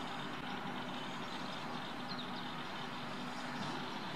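Radio-controlled model airplane flying overhead, its motor a steady drone.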